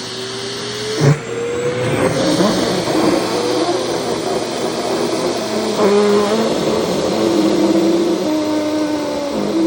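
Vacuum cleaner running while its nozzle sucks at skirt fabric, its motor pitch rising over the first couple of seconds and stepping up and down later on. A sharp knock about a second in.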